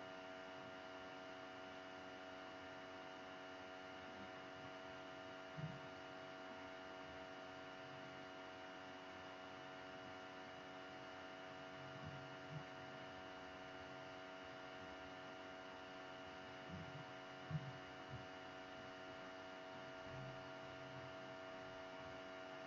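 Faint, steady electrical hum of engine-room equipment, made of several steady tones, with a few faint knocks here and there.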